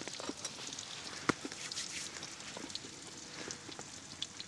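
Thick ribeye steak and onions sizzling in a pan on a wood-burning stove: a steady crackling hiss, with one sharp click about a second in.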